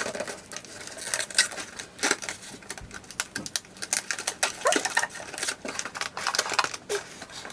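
Cardboard shipping box and its tape handled and picked at while being opened: a busy run of irregular clicks, taps and crinkles.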